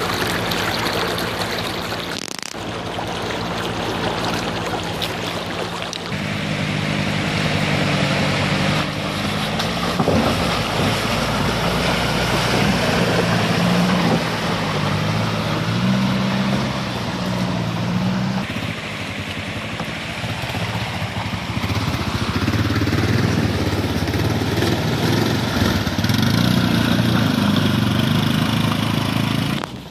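Toyota Tacoma pickup engine running and revving as it drives through a shallow river, with water splashing and rushing around the wheels. Near the end an ATV takes over, its engine working as it crosses the river.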